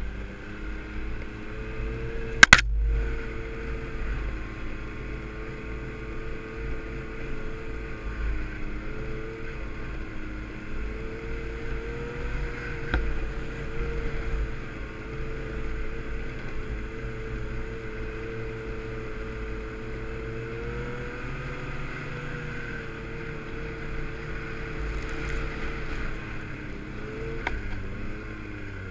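Yamaha snowmobile engine running steadily at trail speed, with wind rumbling on the microphone; its pitch eases and picks up again a few times as the throttle changes. A single sharp knock about two and a half seconds in is the loudest sound.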